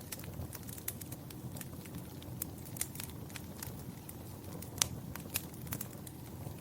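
Fire crackling in a fireplace: irregular snaps and pops over a steady low rumble of the flames, with one sharper pop about three-quarters of the way through.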